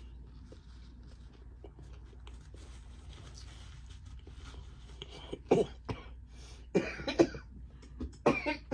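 A woman coughing in three short bouts starting about halfway through, after a piece of pepper went down her throat the wrong way.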